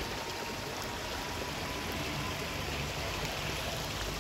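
A small stream, swollen by rain, running steadily over stones in a continuous, even rush of water.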